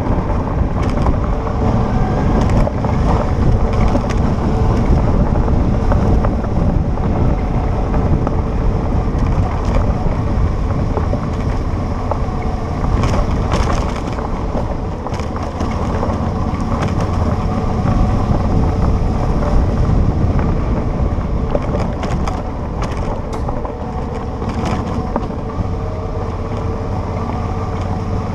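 Motorcycle engine running steadily at low road speed, mixed with wind buffeting on the microphone and tyres crunching over a gravel road. Occasional sharp clicks and knocks from stones and bumps, clustered about halfway through and again near the end.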